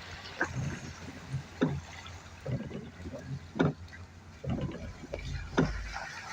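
A vehicle driving slowly through floodwater on a bumpy road: water splashing and sloshing over a low rumble, with irregular knocks as it goes over bumps.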